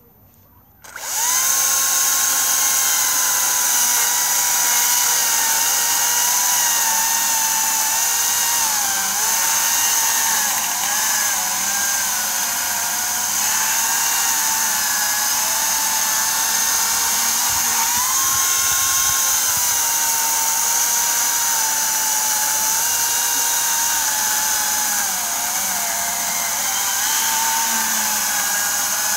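Makita DUC353 battery chainsaw starting about a second in and cutting through a log, a steady motor whine with chain noise whose pitch sags and recovers several times as the chain loads up in the wood.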